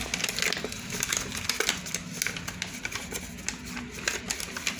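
A sheet of paper rustling and crinkling as it is opened out and folded by hand, with many small irregular crackles.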